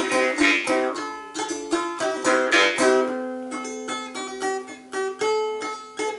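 Balalaika strummed in rapid, even strokes, with a jaw harp twanging a drone along with it for part of the time.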